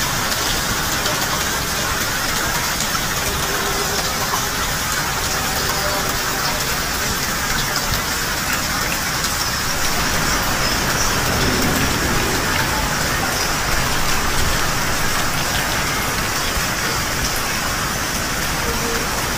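Heavy rain falling steadily, a constant hiss of water splashing on roofs, satellite dishes and the ground.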